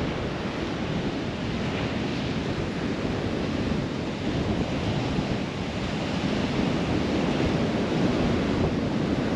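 Rough sea surf breaking on the shore in strong wind, a steady wash of noise with wind buffeting the microphone.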